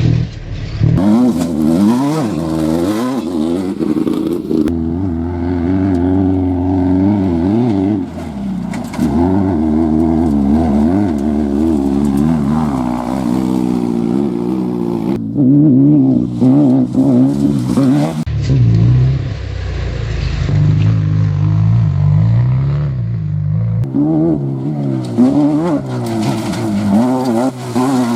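Off-road race vehicles' engines running hard and revving, the pitch rising and falling with the throttle. The sound changes abruptly several times as one vehicle gives way to another.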